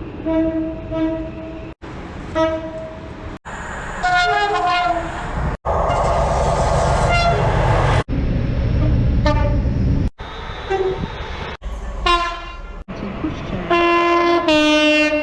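About eight short clips of train horns cut back to back, each a blast or two of a pitched horn: some two notes, some full chords, one sounding over the rumble of a moving train. The loudest, a multi-note chord, comes near the end.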